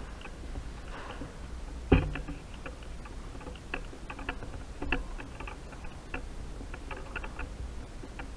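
Irregular light clicks and taps over a low steady rumble, with one sharp knock about two seconds in.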